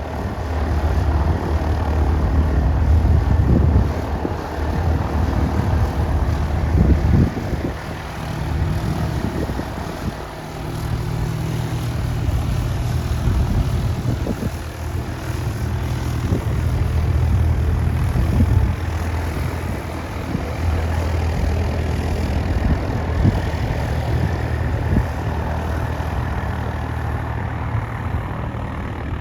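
Propeller airplane engine running with a steady low drone, swelling and easing slightly in loudness.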